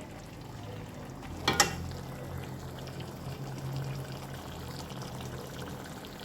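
Chicken in a tomato-onion masala frying in oil in a karahi, a steady soft sizzle and bubbling, with a single sharp knock, like a spoon against the pan, about a second and a half in.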